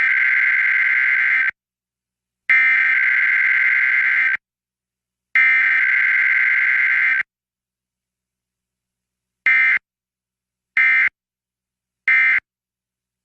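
Emergency Alert System SAME data bursts from a Required Weekly Test. Three long, harsh, warbling tone bursts of nearly two seconds each carry the message header. Then three short bursts, about a second and a half apart, carry the end-of-message code.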